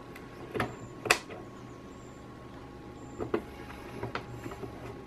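Light clicks and taps of a small circuit-board push-button module being handled and fitted onto an MDF panel: two sharp clicks within the first second or so, then a few fainter ones later, over a low steady hum.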